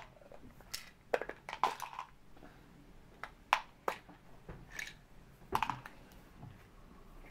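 Scattered light clicks and taps of small toy dinosaur bones being picked out of crumbly dig-kit material on a metal baking tray and dropped into a plastic tub.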